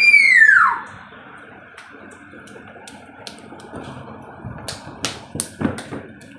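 A small child's high-pitched squeal that rises and then falls away in the first second, followed by a string of uneven hand claps from small children, faint at first and louder near the end.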